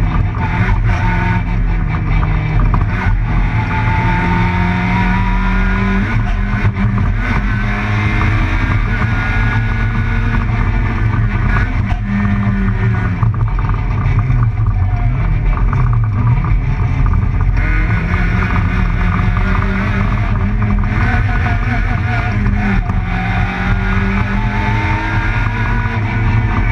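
Group A rally car's engine heard from inside the cabin at racing pace, its pitch climbing and dropping back again and again, with road and drivetrain noise.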